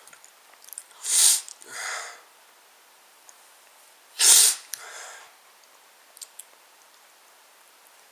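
A person sneezing twice, about a second in and again about four seconds in, each sneeze followed by a quieter sniff.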